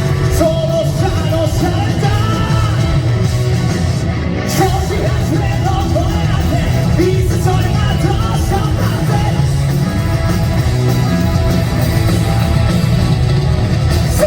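Live rock band playing loudly, with male lead vocals singing over electric guitar and a heavy low end.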